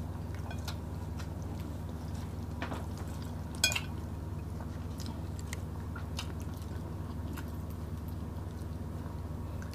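Close-miked chewing and wet mouth sounds of people eating crispy, dark-browned smoked fish (tinapa) with rice, with scattered small clicks and one louder smack a little under four seconds in, over a steady low hum.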